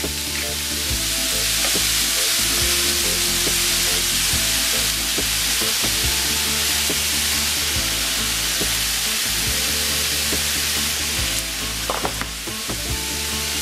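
Pieces of Black Angus beef steak sizzling in a hot nonstick skillet, a steady frying hiss.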